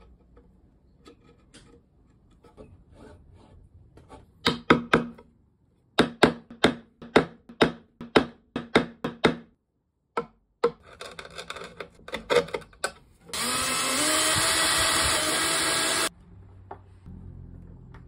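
Hand tools fitting brass hinges into a walnut frame: a chisel scraping out the shallow hinge recess, then sharp hammer taps, a few quick ones and then about ten evenly spaced. Near the end a power drill runs for about three seconds, its pitch rising as it spins up, then stops suddenly.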